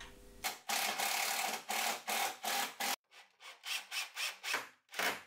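Makita 18 V cordless drill driving screws into a wooden cladding panel: one long run of about two and a half seconds, then several short bursts.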